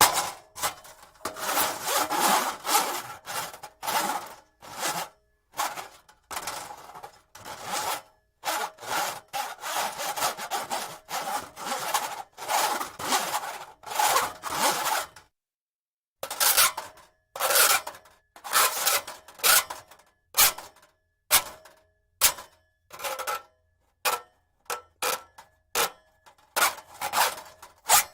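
Braided steel cable being scraped and slid, metal rasping on metal in a series of separate scrapes. The strokes are long and close together at first; after a short pause about halfway through they come shorter and quicker.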